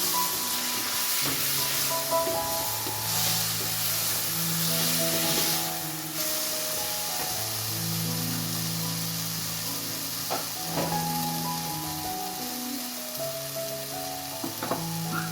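Background music of slow, held notes over food sizzling as it fries, with a few light clinks of a utensil, two around two-thirds of the way through and two more near the end.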